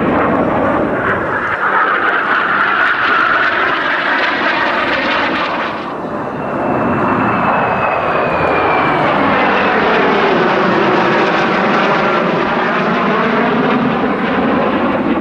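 Four Northrop F-5E Tiger II jets, each with twin J85 turbojets, flying past in close formation with continuous loud jet noise. The noise dips briefly about six seconds in, then swells again as a high whine falls in pitch.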